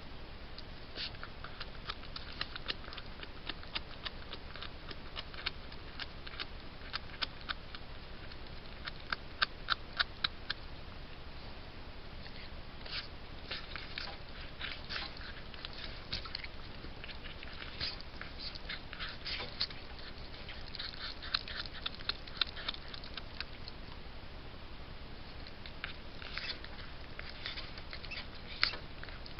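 Fisher chewing and tearing at a beaver carcass: irregular clusters of sharp clicks and crunches, the loudest about ten seconds in, over a steady hiss.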